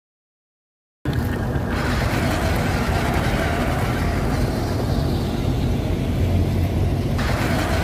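About a second of dead silence, then a radio-controlled dump truck driving over rough dirt ground, giving a steady low rumble from its drive and wheels.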